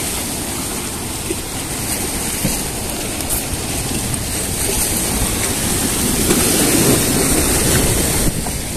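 Choppy, wind-driven lake waves washing and splashing against rock riprap, growing louder in the second half, with wind buffeting the microphone.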